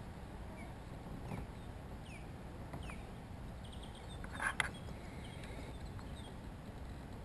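Steady low wind rumble on the microphone with several short bird chirps, and one brief, louder sharp sound about four and a half seconds in.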